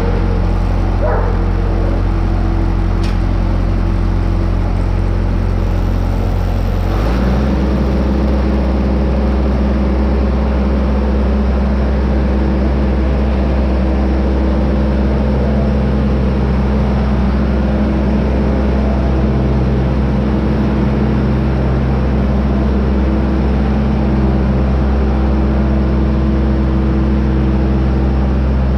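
Tractor engine running steadily; about seven seconds in its speed steps up a little and then holds.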